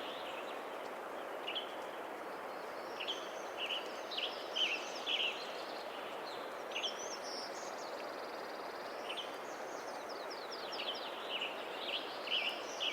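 A mountain stream rushes steadily. Over it, western tanagers sing short, hoarse, robin-like phrases in the canopy, in a cluster about three to five seconds in and again near the end, with a few higher bird notes between.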